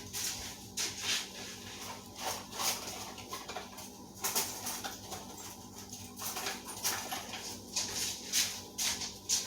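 Faint, irregular rustling and clicking, a few short strokes a second, over a steady low electrical hum.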